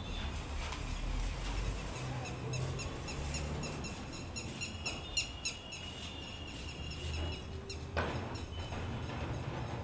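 Birds chirping over a steady low background rumble, with a short noise about eight seconds in.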